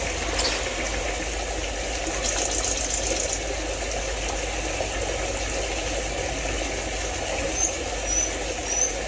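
Mountain stream water rushing steadily over rocks, with three short high bird chirps near the end.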